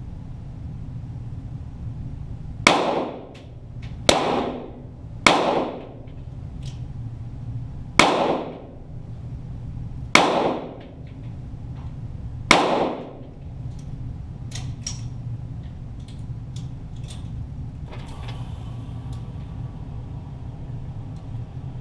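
.22 Walther GSP target pistol shots: six sharp reports at uneven intervals, each with a ringing echo, followed by fainter ticks and knocks over a steady low hum.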